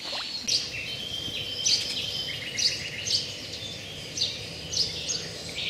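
Several songbirds singing in trees: short, sharp high notes repeating every half second or so, with a rapid trill and a held high note in the middle.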